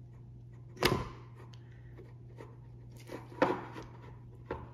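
Steel screwdriver tip clicking and scraping against the plastic plunger of a pump sprayer as it prises the O-ring off. There are a few sharp clicks: one about a second in, a quick pair a little after three seconds, and one more near the end.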